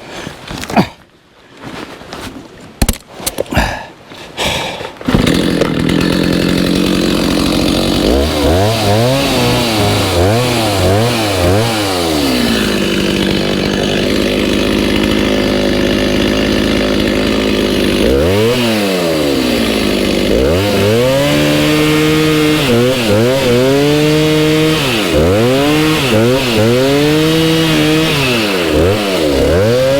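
A few knocks and clatter, then about five seconds in a chainsaw starts running continuously. It cuts into a walnut log, its engine pitch sagging and climbing back again and again as the chain bites into the wood.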